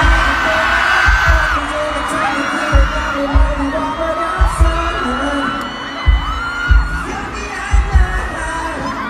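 Live pop ballad from a concert sound system: sung, held vocal lines over a slow beat with deep, regularly spaced kick-drum thumps.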